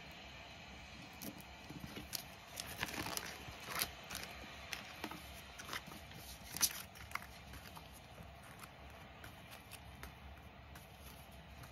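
Hands handling clear plastic binder sleeves and sheets of stickers: crinkling, rustling and small taps as a page of the ring binder is turned and the sticker sheets are picked up and fanned out. The handling is busiest in the first half, with one sharp click about six and a half seconds in, then thins to light ticks.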